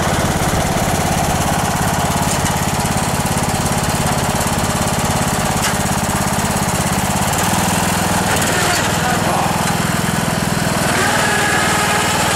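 Troy-Bilt riding mower's 17.5 hp Briggs & Stratton engine running steadily. Its note shifts slightly about seven seconds in and again near the end, as the mower gets under way.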